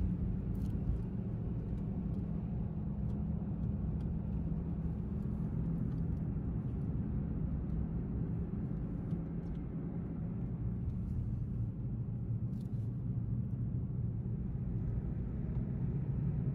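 Steady low rumble of a truck driving along a paved road, its engine and tyre noise heard from inside the cab.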